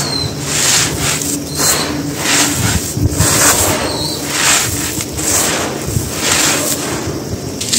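Dry crushed-stone grit and dust being scooped and sifted through hands, pouring and crunching in repeated gritty rushes about every half second to a second.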